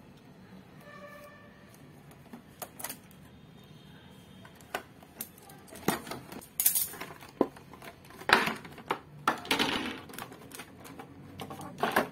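Clear plastic blister tray and plastic bag packaging being handled and pulled apart: scattered crinkles and clicks, growing denser and louder about halfway through.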